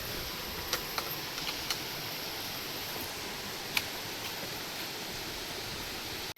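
Steady rushing of water in the rainforest, with a faint high hum above it and a few sharp clicks; it cuts off abruptly near the end.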